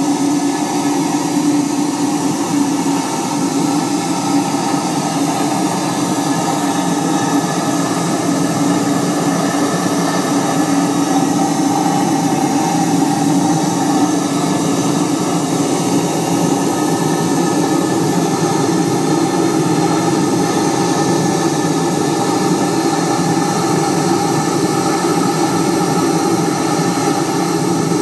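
Model paddle steamer's steam plant running steadily: a continuous hiss with a steady hum beneath it.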